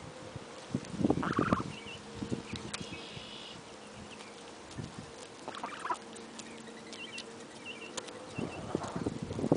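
Seven-week-old goose giving a few short honks and small high peeps, with scratching and pecking noises as it feeds.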